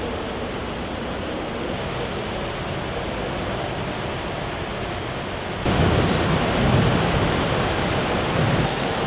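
Heavy rain pouring, with water rushing over a flooded street; a steady hiss that jumps suddenly louder a little over halfway through.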